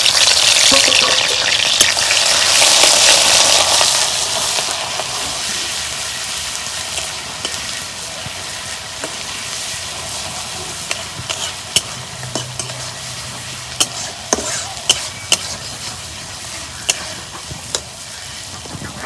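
Chopped onion and onion paste frying in hot mustard oil in a kadai. A loud sizzle over the first few seconds settles into softer, steady frying. In the second half the stirring utensil clicks sharply against the pan.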